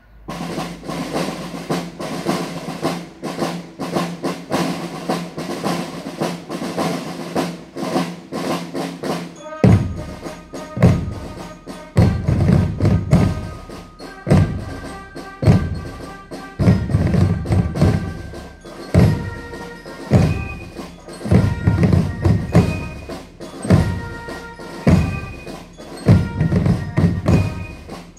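A Spielmannszug marching band playing: snare drums alone for about the first nine seconds, then the bass drum comes in with heavy beats about once a second and high flutes play a march tune over the drumming.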